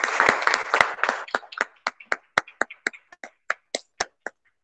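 Hands clapping, heard through a video call: a dense burst at first, thinning after about a second to single claps at about four a second that stop near the end.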